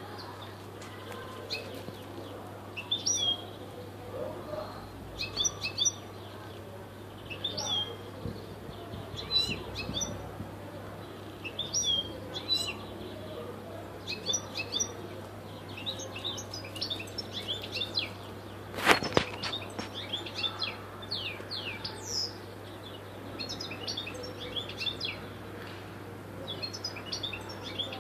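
Caged European goldfinch singing: short bursts of quick, high twittering notes every second or two. A single sharp click about two-thirds of the way through.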